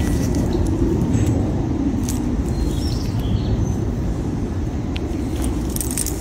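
A few light metallic clinks from a heavy silver wallet chain and its clasp being handled, scattered over a steady low outdoor rumble.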